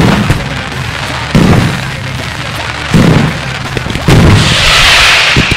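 Fireworks going off over loud rock music: three heavy booms about a second and a half apart, then a loud rushing hiss for about a second near the end.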